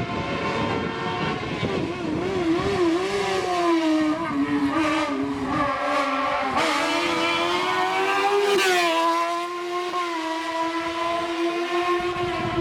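Hillclimb race car's engine under hard acceleration, its pitch climbing and dropping back sharply several times in the middle as it shifts up through the gears, then holding steadier toward the end.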